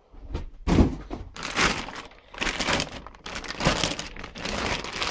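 Packing being handled: foam packing pieces pulled from a cardboard box with a thump about a second in, then plastic wrapping crinkling around the welder.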